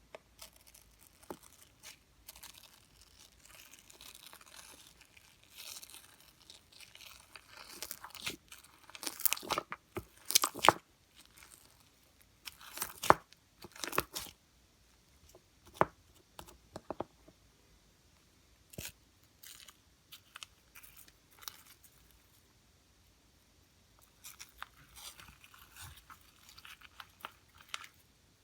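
Hands squishing, stretching and pressing slime, giving irregular crackles, pops and clicks. They come loudest about nine to eleven seconds in, with sparser snaps afterwards.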